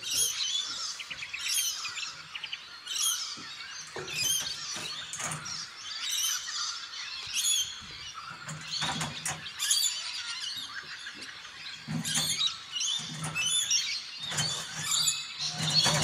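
Many birds calling and chirping, short rising and falling calls repeating throughout, with a few sharp knocks from gear being handled at the trailer.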